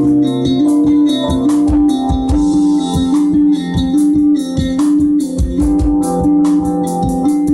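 A live band playing an instrumental passage: plucked guitar over a held, alternating two-note line and a steady drum beat.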